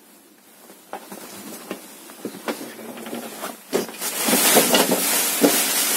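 Rustling and crinkling of a sheet of multilayer foil insulation being handled, with scattered knocks and rustles at first. About four seconds in it becomes a loud, continuous crackle.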